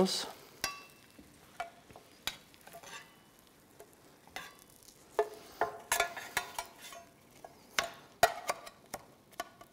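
A metal spoon clinking and scraping against an iron frying pan and a small stainless-steel tin, as scattered taps and clicks that come thicker in the second half.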